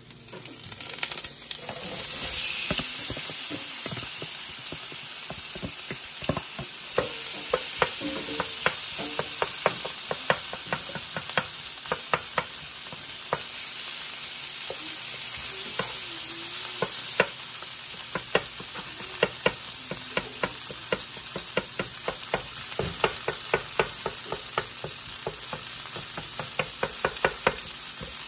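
Small dry grains sizzling as they toast in a hot ceramic-coated skillet, stirred with a wooden spatula that scrapes and clicks against the pan many times. The sizzle swells about two seconds in as the grains go into the pan.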